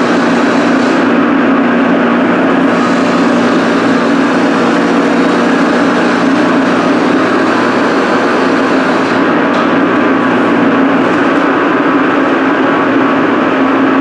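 Steady loud drone of a powder-coating booth's extraction fans, with the hiss of an electrostatic powder spray gun spraying powder coat.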